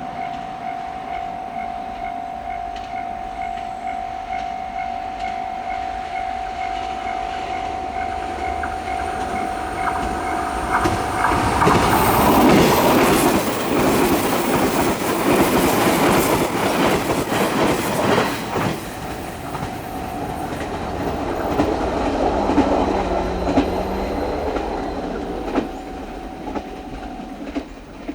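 A Japanese level-crossing alarm rings steadily as a seven-car JR 381 series limited express electric train approaches. The train passes at speed with loud wheel-on-rail clatter for about seven seconds. It recedes while the alarm keeps ringing, and the alarm stops near the end.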